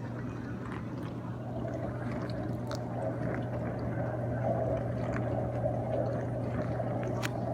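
Whirlpool Gold Series top-control dishwasher running its wash cycle quietly: a steady low motor hum with water swishing inside the tub, and a faint click near the end.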